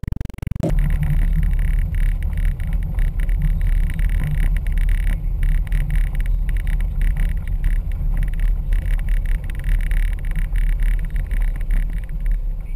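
Cabin noise of a Ford Windstar minivan driving on a dirt road: a steady, loud low rumble of engine and tyres with frequent small irregular knocks and rattles.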